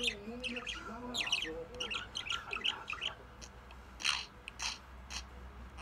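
Budgerigar chattering: a run of quick chirps and warbled notes for about three seconds, then a couple of short, harsh noises about four seconds in.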